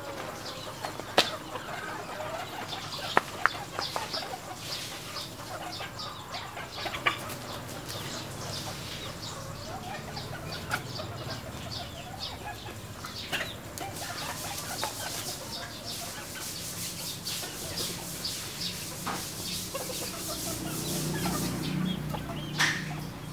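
Flock of red junglefowl clucking as they feed, with scattered sharp pecking clicks and the odd wing flap. A low hum swells near the end.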